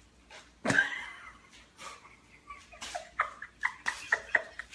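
A dog's claws clicking on a tile floor as it walks, a quick run of about a dozen clicks in the second half. Earlier, a short loud voice-like sound that falls in pitch.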